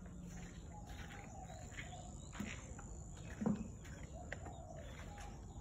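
Garden ambience: a steady high insect drone with scattered short bird chirps. A brief knock about three and a half seconds in.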